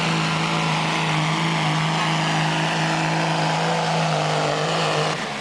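Dodge Ram pickup's diesel engine running under full load as it pulls a weight sled: a loud, steady drone held at one pitch, breaking off just before the end.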